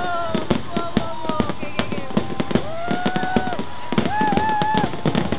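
Aerial fireworks going off in quick succession, a dense run of pops, bangs and crackles. A long held high tone sounds over them about two seconds in, and a shorter wavering one about four seconds in.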